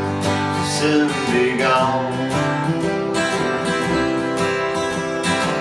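Two acoustic guitars strummed together, playing a country song at a steady rhythm.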